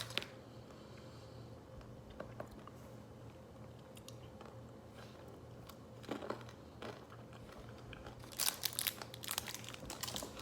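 A person chewing and crunching candy-coated chocolates from an old MRE, faint, with scattered small clicks and a louder crackly burst near the end.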